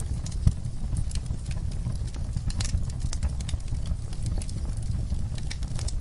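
Wood fire in a fireplace crackling, with irregular sharp pops and snaps over a steady low rumble of the flames; one louder pop comes about half a second in.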